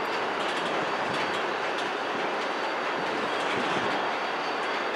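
Loaded coal hopper cars rolling slowly through the loadout: a steady rumble and rattle from the wheels and cars, with a faint steady high-pitched whine over it.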